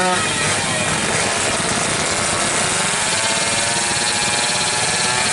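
Two-stroke underbone drag bike engine revving hard at the start line. A sharp rev rises and falls right at the start, then the engine is held high with its pitch wavering and slowly climbing.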